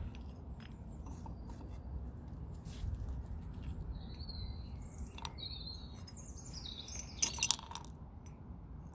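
Small birds chirping in short high calls, with a few sharp metallic clinks; the loudest clink comes about seven and a half seconds in. A low steady rumble runs underneath.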